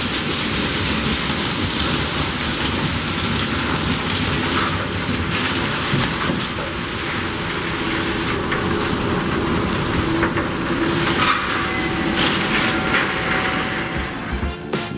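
Coal pouring from a loadout chute into an open hopper car: a dense, steady rush like heavy rain. About fourteen and a half seconds in, it gives way to music.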